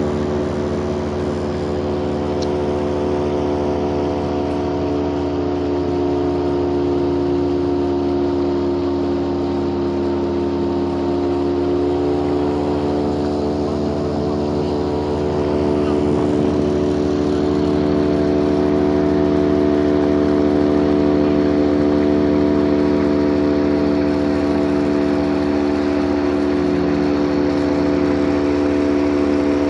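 Motorboat engine running steadily at constant speed under way, growing a little louder about halfway through.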